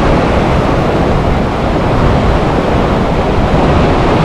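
Fast river current rushing and churning around boulders: a steady, loud wash of water noise.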